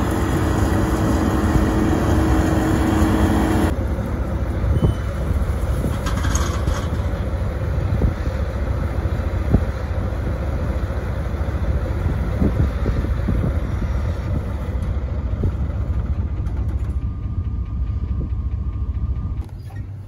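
Gleaner F2 combine running as it drives over the harvested field: a steady low engine rumble with a few light knocks. A steady hum over it cuts off a few seconds in.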